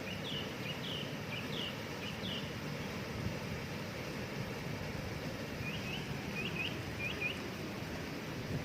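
Steady rushing water of a waterfall, with a songbird singing quick high chirps in two short bursts, at the start and again about six seconds in.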